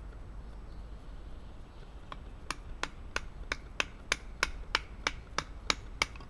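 A wooden baton striking the spine of a Mora Clipper knife, driving the blade down into a branch to split it. The knocks come in an even run of about a dozen sharp blows, roughly three a second, starting about two seconds in.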